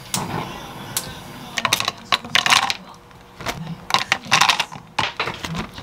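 Frozen blueberries tipped into a blender jar of yogurt, clattering in as quick clusters of hard clicks, three handfuls one after another.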